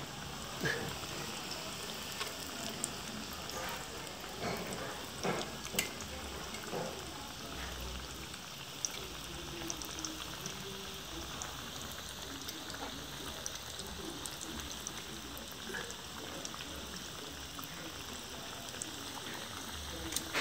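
Breaded shrimp frying in a pan of hot oil: a steady sizzling crackle, with a few sharper clicks and pops.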